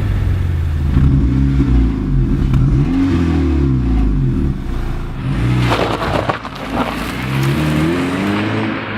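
Car engine revving, its pitch climbing and dropping several times over, with a burst of rougher crackling noise about six seconds in.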